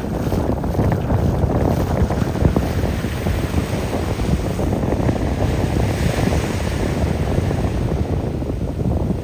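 Wind buffeting the microphone in a steady low rumble, over small waves washing on a sandy beach. A softer hiss of surf swells about six seconds in.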